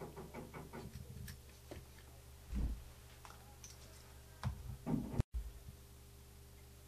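Handling noises from a hobby brush and tools on a tabletop: a quick run of faint ticks as the brush works over the plastic model, then a soft thud and a few light knocks as the hands and tools leave the model.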